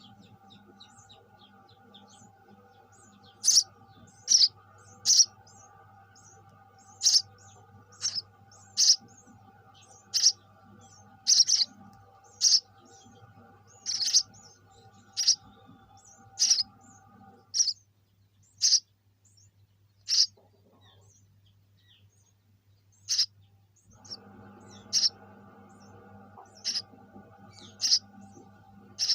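Sparrow giving loud, short, single chirps, repeated about once a second, with faint quick chirping at the start. A steady low hum runs underneath and drops out for several seconds in the middle.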